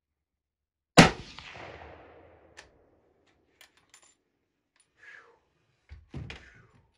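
A single gunshot from a hunting gun about a second in, fired from inside a wooden hunting blind, ringing out and fading over about a second and a half. A few small clicks follow, then a quieter clatter of knocks near the end.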